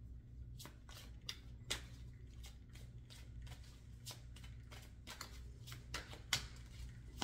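A tarot deck being shuffled by hand: a run of quick, irregular card clicks starting about half a second in.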